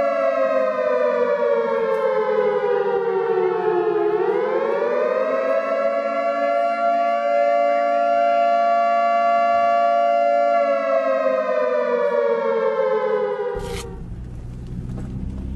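Air-raid-type siren wailing: its pitch falls, climbs back about four seconds in, holds, then falls again and cuts off near the end, giving way to a low rumble.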